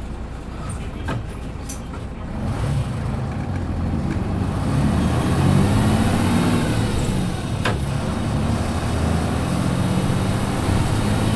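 Interior running sound of a Hino KC-RU1JJAA short-bodied large bus: the engine pulls away and its note rises as the bus accelerates. A few sharp clicks and rattles come over it, typical of this bus, which makes many odd noises.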